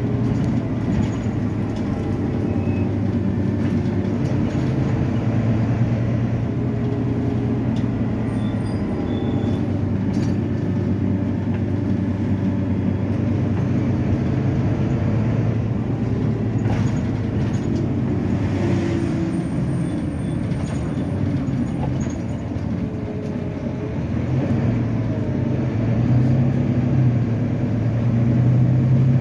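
Volvo B9TL double-decker bus's six-cylinder diesel engine running steadily. Near the end its note grows louder and rises a little as the bus pulls harder.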